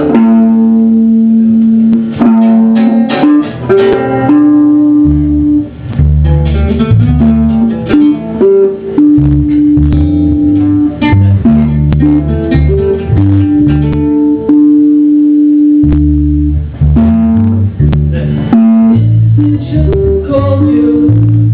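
Guitar music: plucked guitar notes and held tones over a moving bass line.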